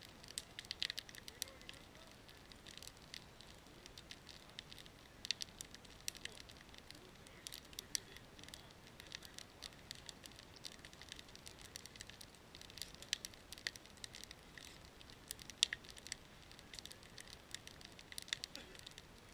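Wood fire of split logs crackling, with irregular sharp pops and snaps.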